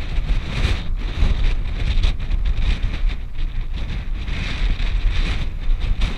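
Wind buffeting the camera's microphone in uneven gusts: a heavy low rumble with a rushing hiss over it.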